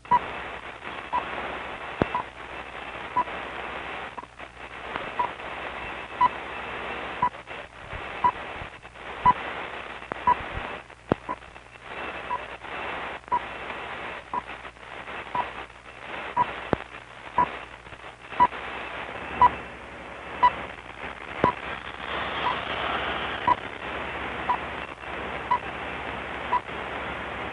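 Shortwave reception on 12 MHz through a Realistic DX-302 receiver: a time-signal station's short tone ticks, about one a second, heard through steady hiss with scattered static crackles and fading.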